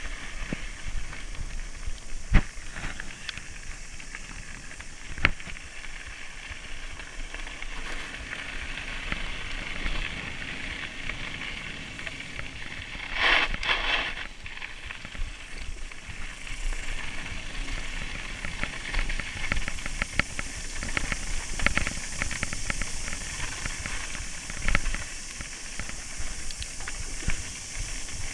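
Mountain bike ridden along a gravel and dirt trail: a steady hiss of tyres rolling on gravel, mixed with wind on the camera. Sharp knocks from bumps come now and then, the loudest about two seconds in, with a louder rough stretch about halfway through.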